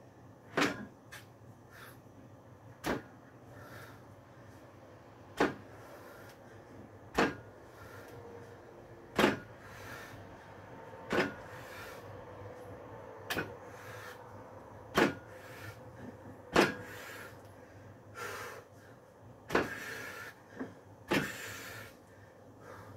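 Loaded barbell with homemade wheel weights clanking sharply once per rep, about every two seconds, through a set of lifts.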